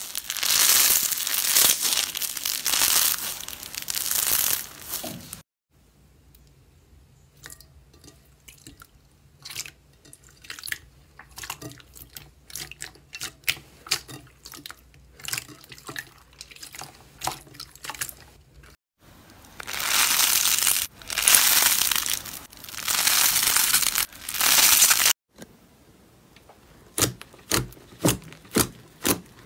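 Slime handled by hands, in a string of short clips. Grainy slime crackles loudly as it is pulled apart and squeezed. Softer wet clicks and squelches follow, over a faint low hum, from slime worked in a bowl. A second burst of loud crackling comes next, and near the end a run of sharp pops as fingers press into thick slime.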